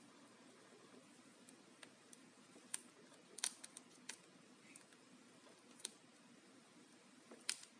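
Sparse, faint clicks and taps of small plastic parts and connectors being handled during computer reassembly, about eight in all and two in quick succession about three and a half seconds in, over near-silent room tone.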